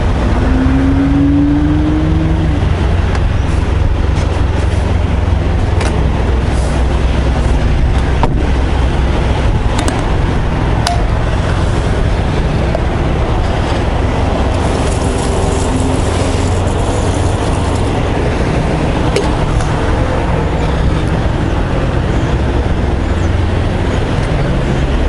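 Steady low rumble of vehicle engines and traffic, with a short rising whine about a second in.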